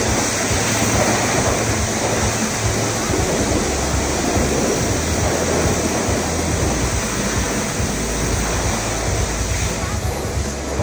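Pressure-washer water spraying against a truck's body, a steady rushing hiss, with a low steady hum underneath.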